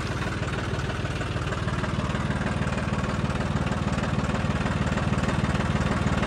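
Farm tractor's diesel engine running steadily with an even, rapid beat, growing a little louder toward the end.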